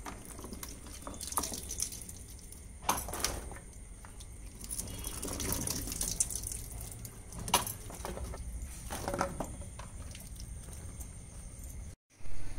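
Wild mushrooms being washed by hand in a plastic tub of water: water sloshing, with irregular splashes and drips as handfuls are lifted out and dropped back in.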